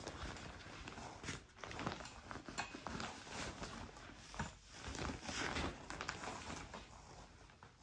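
Fabric of a photography softbox rustling as it is pulled and stretched over its frame, with scattered light handling knocks.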